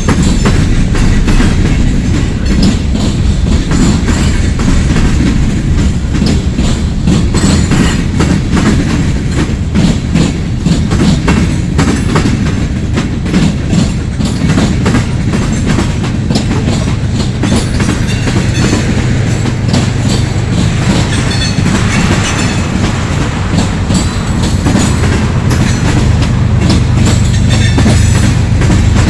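Loaded freight cars rolling past at speed: steady wheel clatter over rail joints on a heavy rumble, with a faint wheel squeal. About halfway through, a steady low hum joins in and holds.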